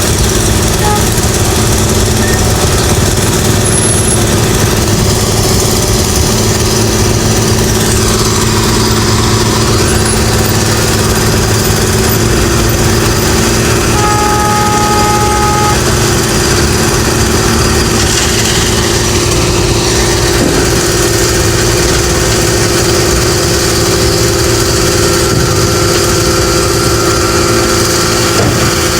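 Engine of road construction machinery running steadily at a constant speed. A short steady tone sounds about halfway through and lasts under two seconds.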